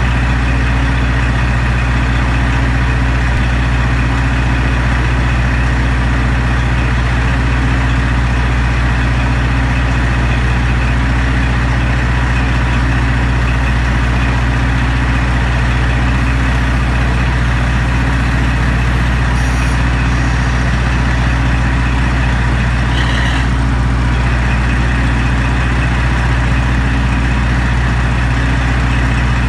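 DMF15HSA horizontal six-cylinder diesel engine of a KiHa 47 railcar idling steadily under the floor, a constant low engine tone with no revving.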